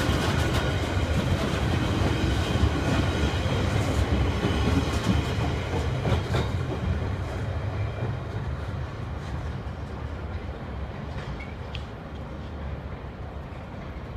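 Train running past, a heavy rumble with wheels clicking over rail joints, loud at first and fading steadily away over the second half.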